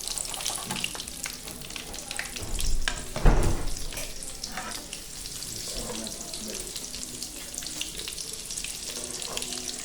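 Bolinho de chuva batter frying in hot oil, a steady sizzle with fine crackles. A single loud thump comes about three seconds in.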